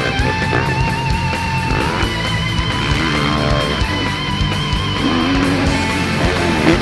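Hard rock music with electric guitars: a lead guitar holding long wavering notes over a steady drum beat.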